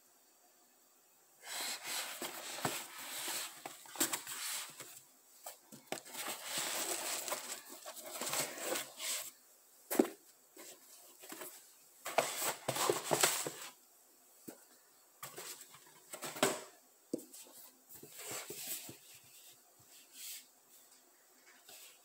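Cardboard shoebox and crumpled tissue paper rustling and crinkling as a pair of sneakers is unpacked by hand, in irregular bursts of a second or two with a few sharp knocks, quieter scattered handling near the end.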